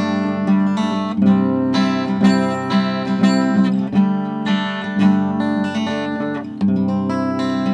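Acoustic guitar, a 12-string strung with only six strings, improvising in the key of C. Notes are picked and strummed one after another, and a last chord is struck near the end and left ringing.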